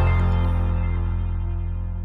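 Background music ending on a final held chord that slowly decays and fades.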